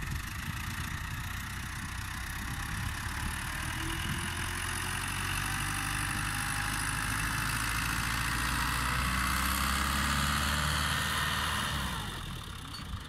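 Fiat 640 (New Holland) tractor's four-cylinder diesel engine running steadily under load while its front blade pushes sand, growing slightly louder, then dropping in level near the end.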